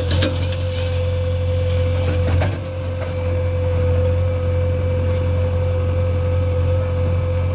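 JCB 3DX backhoe loader's diesel engine running steadily at work, a low drone with a steady whine above it and a couple of sharp knocks, one right at the start and one about two and a half seconds in.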